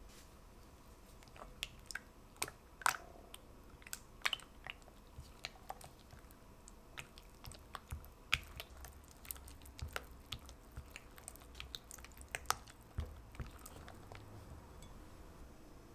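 Silicone spatula stirring egg into thick cream cheese batter in a glass bowl: irregular small clicks and taps of the spatula against the glass, with sticky, wet sounds of the batter, a few taps louder than the rest.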